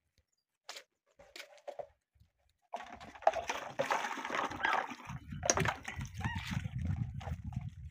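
Water splashing and sloshing in a metal basin as cups and dishes are washed by hand, with light clinks of the crockery; it starts about three seconds in. From about five seconds in, a low rumbling sound joins it.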